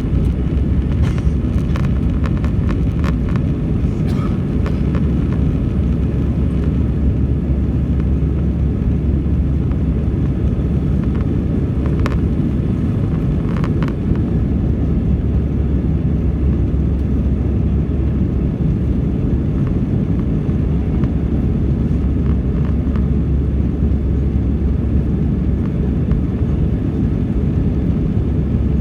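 Airbus A320 jet engines at takeoff power, a steady deep rumble that holds at one level. A few light clicks come in the first few seconds and again about halfway through.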